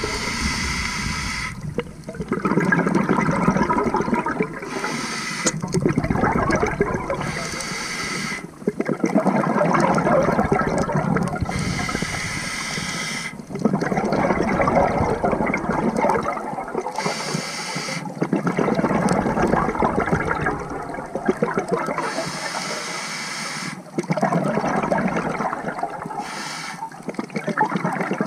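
Scuba diver breathing through a regulator underwater: a short hissing inhale, then a long bubbling exhale, about five breaths, one every five seconds or so.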